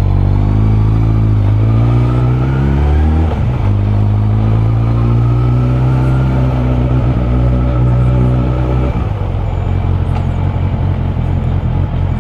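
Suzuki Bandit 600's inline-four engine rising in revs for about three seconds, a brief break as it shifts gear, then holding steady revs until the throttle is closed about nine seconds in.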